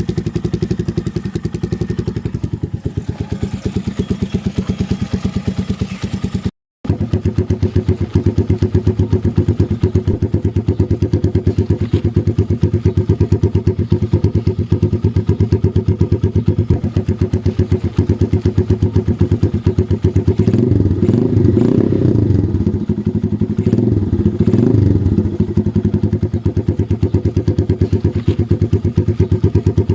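Rusi Mojo 200cc motorcycle engine running through an aftermarket SC Project exhaust canister, idling with a steady pulsing exhaust note and several throttle blips between about 20 and 25 seconds in. The sound cuts out briefly about six seconds in.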